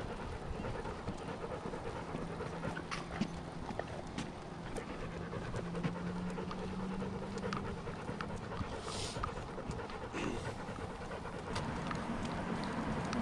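A dog panting close to the microphone, with a low steady hum underneath that fades out about two-thirds of the way through.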